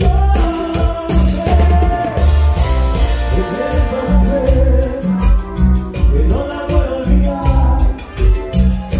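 A live band playing Latin dance music with a lead singer, an electric bass and a drum kit keeping a steady beat.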